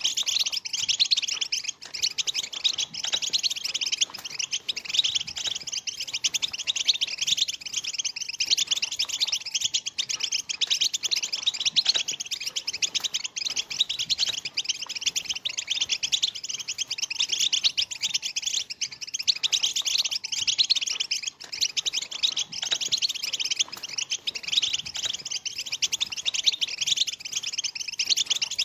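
A flock of juvenile European goldfinches twittering together in a dense, continuous chorus of high, rapid chirps and chattering calls.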